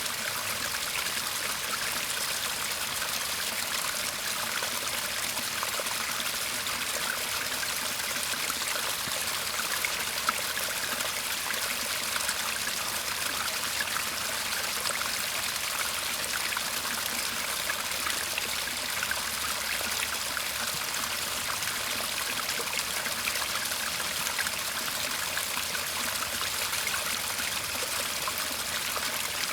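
Shallow garden stream (seseragi) babbling and trickling steadily.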